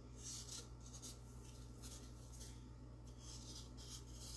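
Paint pen tip scratching along the grooves of a pumpkin as lines are drawn, faint and in several short strokes.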